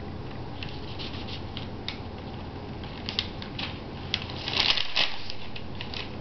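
Paper rustling with scattered small clicks and taps as a toddler handles paint pots and tubes on a newspaper-covered floor, with a louder flurry of scraping and clicking about four and a half seconds in.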